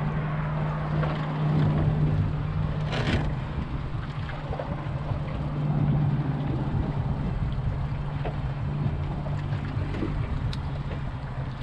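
Wind buffeting the microphone over a steady low hum, with a brief knock about three seconds in.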